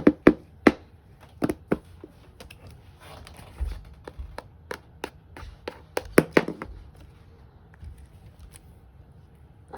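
Plastic slime container being handled and opened: a string of sharp clicks and taps, with a brief rustle around the middle.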